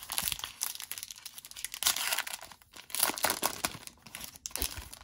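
Foil wrapper of a 2011-12 Panini Contenders hockey card pack being torn open and crinkled by hand, in several crackling bursts.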